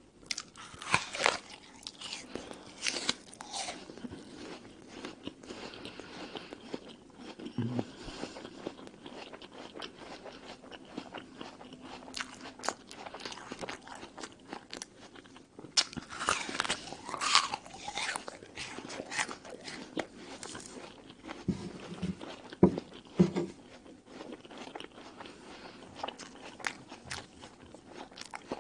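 Close-miked bites into a crisp red apple, with loud crunching about a second in and again around two-thirds of the way through, and steady wet chewing of the apple flesh in between.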